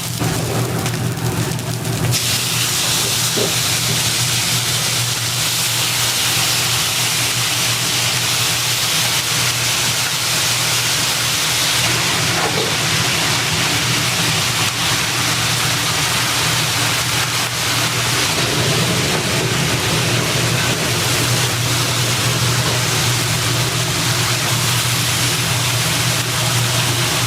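Food sizzling in a hot pan, a steady hiss over a constant low hum.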